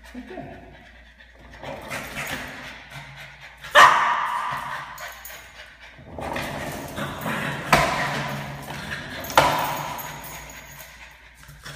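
A Pug–Boston terrier mix barking at a skateboard rolling across a hard tiled floor: several sudden loud barks, the loudest about four seconds in and two more near the end, with the rumble of the board's wheels fading out between them.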